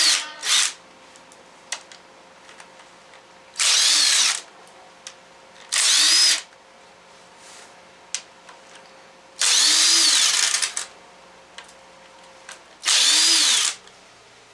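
A power tool with a 10 mm socket spins out the engine cover bolts of a Hummer H3 3.5 L five-cylinder in about four short runs, one bolt at a time. Its motor whine rises and falls on each run, and there are light clicks in the pauses between.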